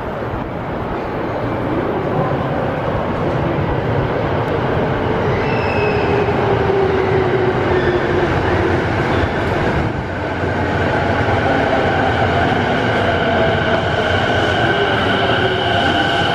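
JR East E217 series electric commuter train pulling into an underground platform. Its running noise builds over the first few seconds as it approaches, and from about ten seconds in, as the cars run along the platform, a steady whine at several pitches sits over the rumble.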